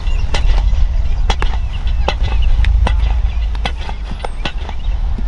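Baseball warm-ups: irregular sharp cracks and pops, about one to three a second, of balls smacking into gloves and off bats, over a steady low rumble of wind on the microphone.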